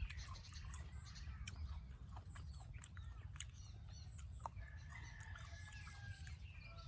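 Chickens clucking faintly, mixed with scattered small clicks and a steady high-pitched tone.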